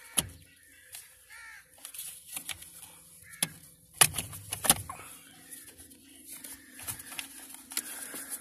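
Sharp clicks and knocks of plastic wiring-harness connectors and clips being worked loose under a car's dashboard, the loudest pair about four seconds in.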